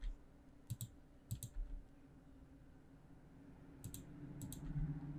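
Computer mouse and keyboard clicks: several short, sharp clicks, mostly in pairs, a few seconds apart.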